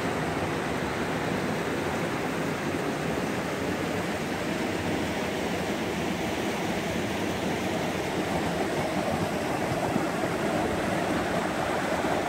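Swollen creek rushing over rocks in a steady noise, growing a little louder in the last few seconds.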